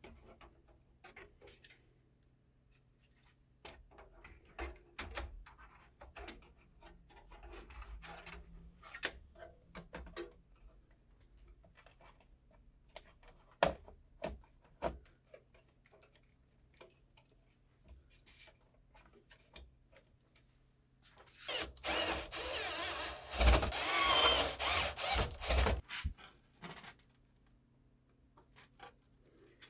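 Computer hardware being handled and fitted: scattered clicks, taps and rubbing of parts, then a loud rasping run of about five seconds, broken into short pulses near its end, in the last third.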